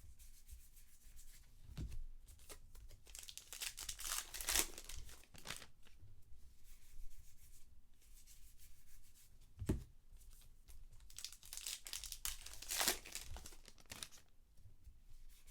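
Trading-card pack wrappers being torn open and crinkled, twice, each time a few seconds after a knock on the table.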